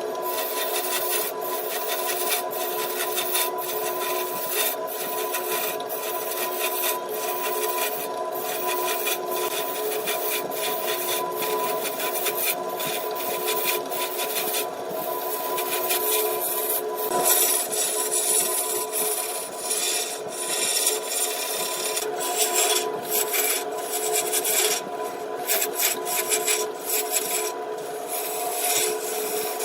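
Wood lathe running with a steady hum under a continuous scraping hiss of a turning tool against the spinning wood, broken by many brief gaps.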